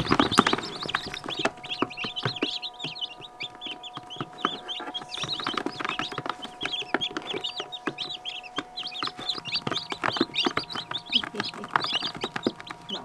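A crowd of newly hatched chicks peeping nonstop, many short high chirps overlapping, with scattered light knocks and a louder knock right at the start.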